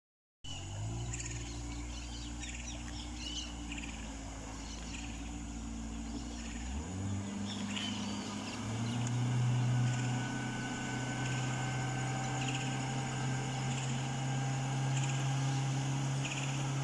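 Birds chirping and calling over a steady low hum that shifts pitch about seven and nine seconds in.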